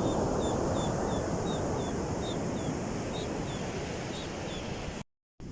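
Steady rushing of wind and surf, with a bird repeating a short, slightly falling high chirp about three times a second. The sound cuts off abruptly near the end.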